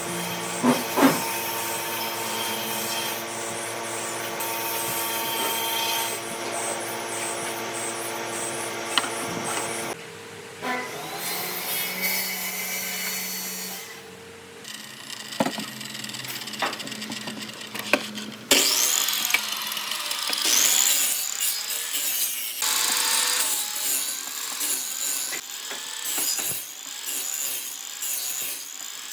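Power tools cutting and shaping wood: a motor's steady whine under the gritty scrape of the tool biting into the wood. The sound changes abruptly three times, and in the last part the motor's pitch rises and falls.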